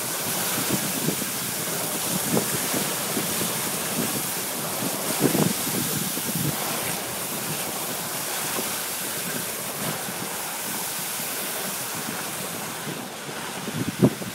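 Dog sled gliding over packed snow: a steady hiss of the runners with wind rushing over the microphone. A few knocks and thumps come through, the loudest about five seconds in and just before the end.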